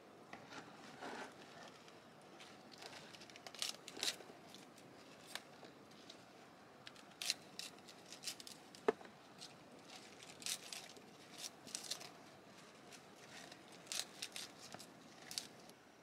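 Irregular crisp snips, tears and crinkles of plant material being cut and handled by hand, with one sharper snap about halfway through.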